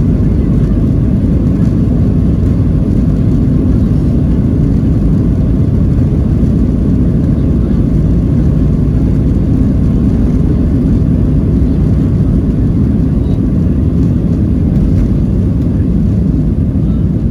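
Boeing 737-700's CFM56 jet engines and rushing air heard inside the cabin as a steady, loud, low rumble.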